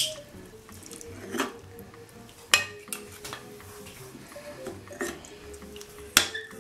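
Metal serving spoon clinking and scraping against a ceramic serving bowl as stew is dished up, with a few sharp clinks, the loudest about two and a half seconds in and near the end.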